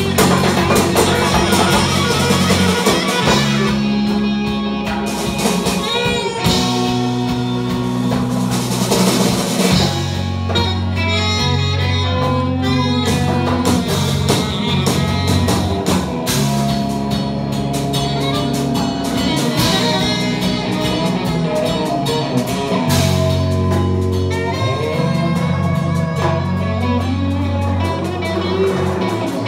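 Live band playing a bluesy instrumental: electric guitar, drum kit, djembe and saxophone, with the low notes changing every few seconds.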